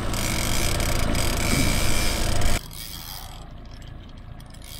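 Trolling reel working under load with a king salmon on the line: a steady mechanical whirring and clicking that stops abruptly about two and a half seconds in, leaving a quieter hiss.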